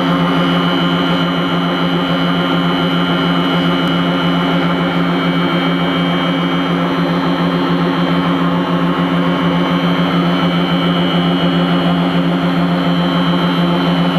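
Wire-straightening machine for staple-nail wire running steadily: its electric drive motor and straightening rollers give a constant low hum with a steady high whine above it.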